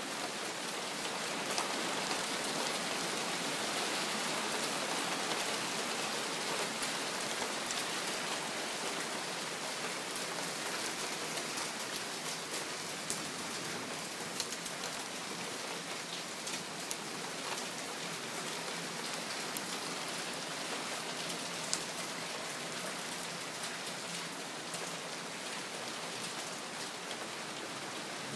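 Heavy rain falling steadily on a backyard patio and garden, with scattered sharper drop hits close by.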